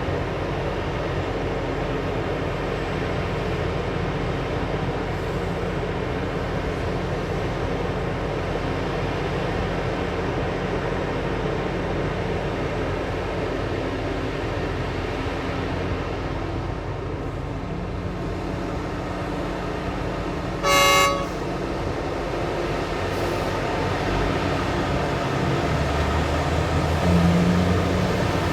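Diesel engines of a mining excavator and haul truck running steadily, with one short, loud horn blast about two-thirds of the way through. The engine noise picks up near the end.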